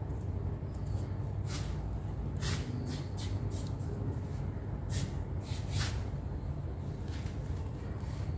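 Dried, hardened sand-cement texture being crumbled and let fall by hand on a floor: several short gritty rustling crumbles over a steady low rumble. The material has set stone-hard and barely breaks apart.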